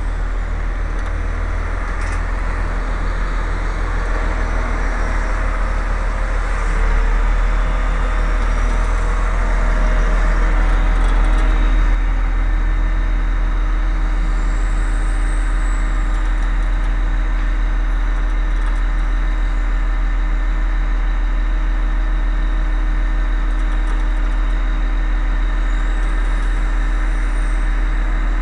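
Heavy-equipment diesel engine running steadily with a deep, even hum. It grows a little louder for a few seconds near the middle, then settles back.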